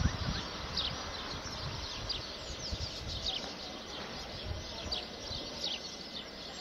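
Many small birds chirping, with short high calls that drop in pitch, several a second, over a low background rumble.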